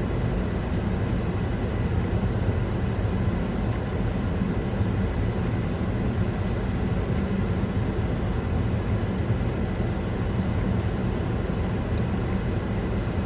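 Steady low rumble of a car idling, heard from inside the cabin, with a few faint light clicks.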